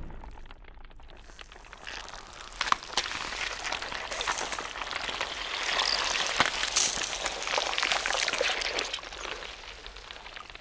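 A cherry being slowly crushed in a small metal bench vise, its skin and flesh giving a dense crackle of tiny clicks and wet pops as juice is forced out at the stem. The crackle builds from about two seconds in and eases near the end.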